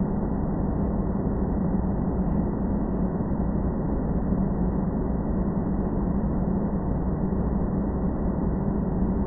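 Steady, unchanging low rumbling noise with a droning hum, an ambience track meant as filler noise for editing.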